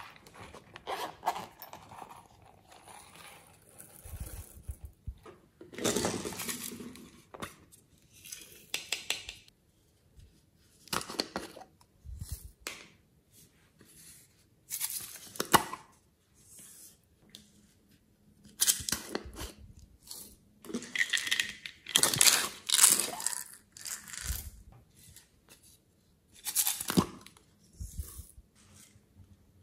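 Close handling sounds of toy-shaped plastic containers and modelling clay being pulled out and dropped into slime: irregular bursts of tearing, crinkling and crunching, with quiet gaps between.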